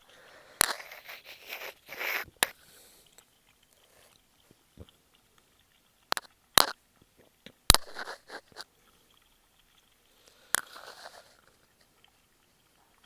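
Puppies eating, chewing and crunching food in short spells, with several sharp clicks.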